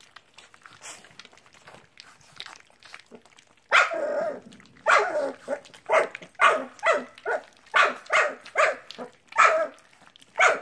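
Old English Sheepdog puppy barking: a run of about a dozen short, high yaps, about two a second, starting about four seconds in. Before that, only faint clicks from the puppies eating out of a metal bowl.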